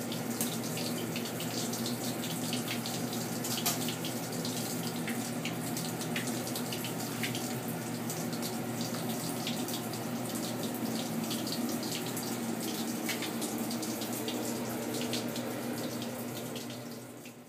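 Tap water running steadily into a darkroom tray, with small splashes and clicks as hands move sheets of film about in the water. A faint steady hum sits underneath, and the sound fades out near the end.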